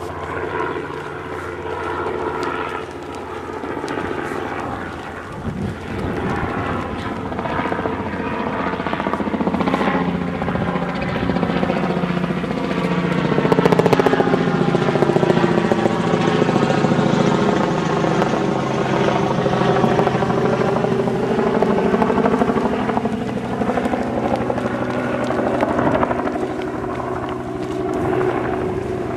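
An aircraft engine drone passing low overhead, growing loudest about halfway through and easing off toward the end.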